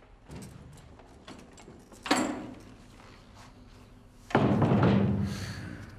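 A panelled door being pulled shut: a sharp knock about two seconds in, then a louder heavy thud about four seconds in that dies away over about a second.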